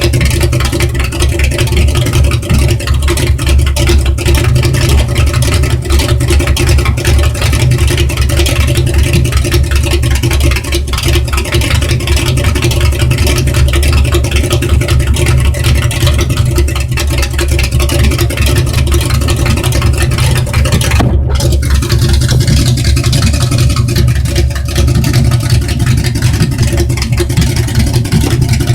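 1968 Ford Galaxie's engine running steadily on its first run after engine repair, with a momentary dropout about 21 seconds in.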